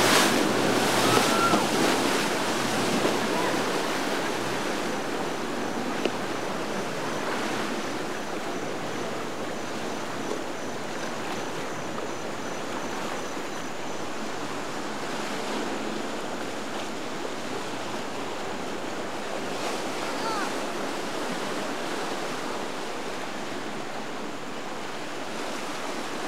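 Steady rush of rough, churning canal water, with waves slapping and breaking around passing boats. It is louder for the first couple of seconds, then settles.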